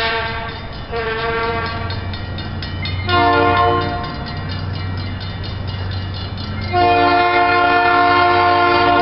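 Northwestern Pacific diesel locomotive 2009 sounding its air horn, a chord of several notes at once, as it approaches. There are two short blasts in the first two seconds, a longer one about three seconds in, and a long blast starting about seven seconds in, all over the steady low rumble of the locomotive's diesel engine.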